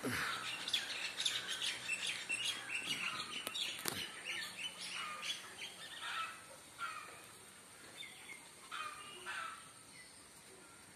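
Small birds chirping: a quick run of short, repeated chirps that thins out in the second half. A single click about four seconds in.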